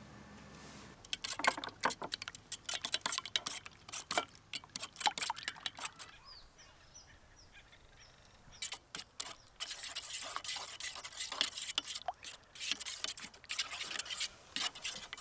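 Two runs of irregular clicking and scraping, as of things being handled, with a faint short series of high chirps between them.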